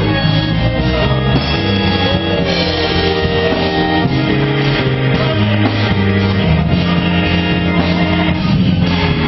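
Live church worship band playing held chords on keyboard over a steady bass line, with some singing.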